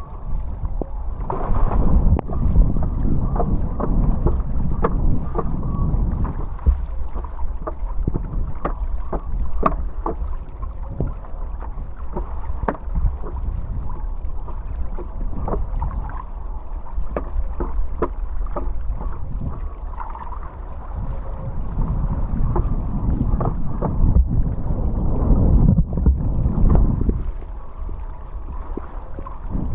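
Wind buffeting the microphone in a heavy low rumble, over water rushing and splashing with irregular slaps, while riding a downwind foil board on open ocean swell.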